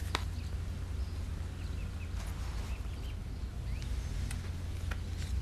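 Quiet room tone with a steady low hum, a few faint short bird chirps, and soft clicks and rustles of a paper card being opened by hand.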